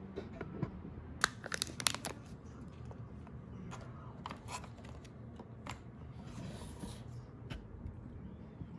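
Takeout packaging being handled: sharp crinkles and clicks as the sealed lid is peeled off a plastic dipping-sauce cup, then scattered clicks and a soft rustle from the cardboard box and foil tray.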